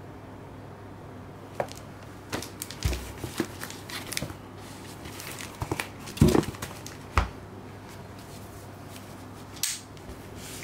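A cardboard shipping box being handled: scattered taps, scrapes and knocks as it is picked up, turned over and set down on a table, with a couple of louder thumps in the middle and a brief rustle near the end, over a low steady hum.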